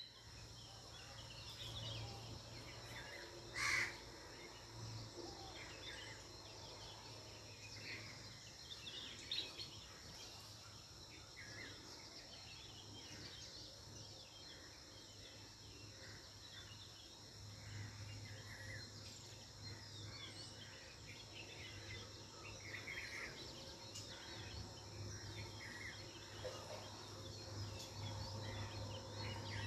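Faint outdoor ambience of birds chirping and insects trilling steadily, over a low hum. A brief sharp click about four seconds in is the loudest sound.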